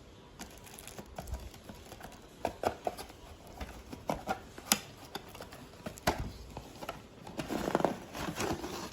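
A small product box being opened and its packaging and contents handled: a scattering of light clicks and taps, with a short burst of rustling near the end.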